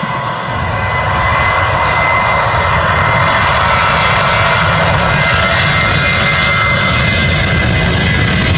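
Twin jet engines of an Airbus A321 running at high thrust as it rolls down the runway: a steady roar with a fan whine on top. The sound grows louder about a second in and then holds.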